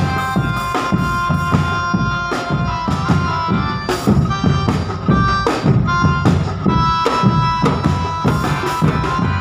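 A drum band playing live: drums and percussion beat steadily under a reedy wind-instrument melody of held notes.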